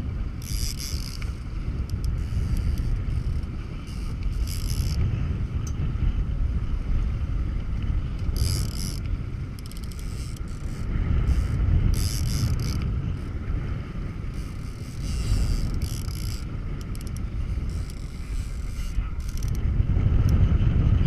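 Boat running on choppy open sea: a steady low rumble of motor and wind on the microphone, with short bursts of water hiss every few seconds.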